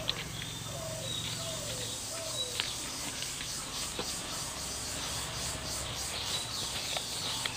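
Birds calling in the background: a dove cooing in repeated low notes for the first couple of seconds, and small birds chirping high and short throughout. A few sharp clicks come from the leaf bundle being handled and tied.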